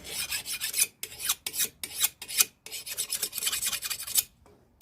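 A steel file scraped over a freshly quenched knife blade in a file test: a long stroke, a quick run of short strokes, then another long stroke. The file skates over the steel 'like glass', the sign that the blade has hardened fully.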